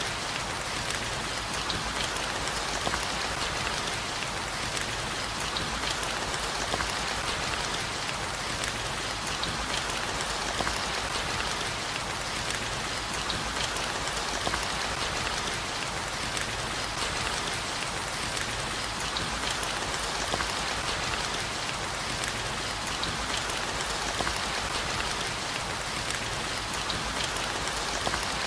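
Steady rain falling, an even hiss dense with the patter of individual drops striking a surface.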